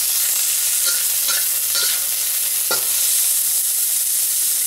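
Baby scallops, bell pepper and green onion sizzling in hot oil in a wok, with a metal wok spatula scraping and knocking against the pan a few times as they are stirred.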